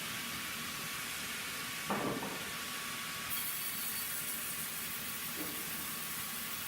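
Steady hiss, with one short knock about two seconds in and a fainter knock later.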